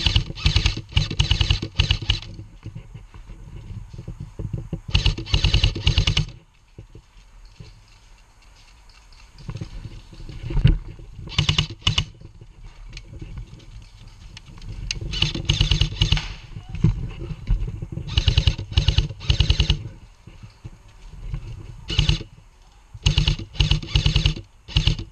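Airsoft electric guns firing on full auto: a rapid mechanical rattle of shots in repeated bursts of one to two seconds, with short pauses between them.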